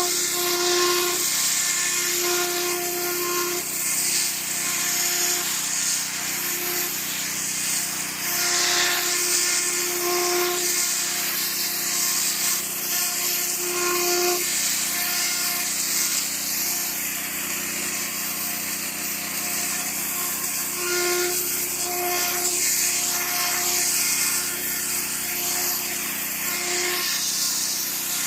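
Pressure washer running steadily: the pump motor hums while the water jet hisses. Mid-pitched tones come and go every few seconds over the steady hiss.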